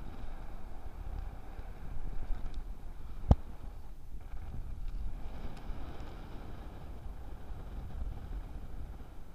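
Wind buffeting an action camera sealed in a waterproof case, a muffled, uneven low rumble, with one sharp click about a third of the way in.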